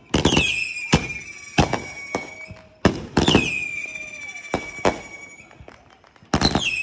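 Aerial fireworks going off in a string of sharp bangs. Three of the bangs are each followed by a whistle that drops in pitch and then holds steady for about two seconds.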